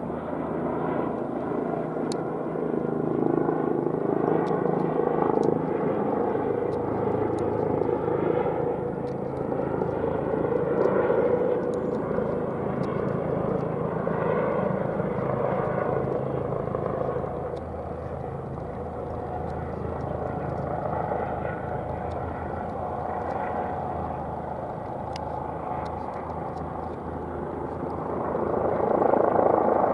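Airbus H135 (Eurocopter EC135) twin-turbine helicopter running, a steady engine and rotor noise that slowly swells and eases and grows louder again near the end.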